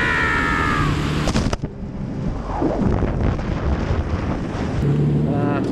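Jet ski engine running with wind buffeting the microphone. The sound changes abruptly about one and a half seconds in, after which rushing wind and water noise dominate.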